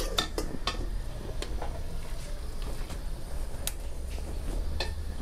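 A long-handled metal ladle clinks against an aluminium stockpot and a stainless steel bowl as pieces of simmered red pork are scooped out of the cooking liquid: a handful of sharp, scattered clinks over a low, steady rumble.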